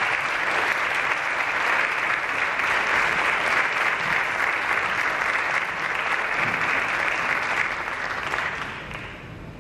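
Audience applauding, then dying away near the end.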